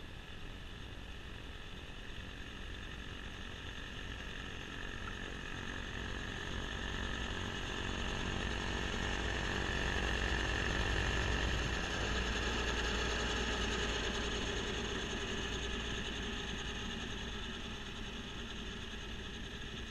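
Kubota B2650 compact diesel tractor with a front-mount snowblower running and throwing snow. A steady high mechanical whine sits over the engine, growing louder to a peak about halfway through as the machine passes close, then fading as it moves away.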